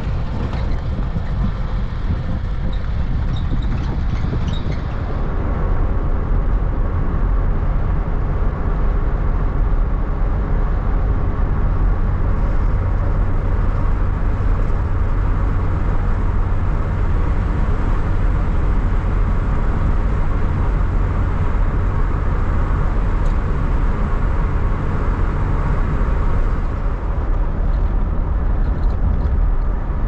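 A car driving along a paved road: steady engine and tyre rumble, a little louder from about five seconds in.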